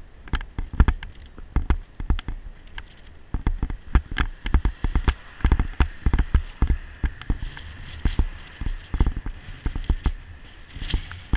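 Irregular clicks and knocks from a camera mount rattling over the riding surface, mixed with gusty wind buffeting on an action camera's microphone while riding.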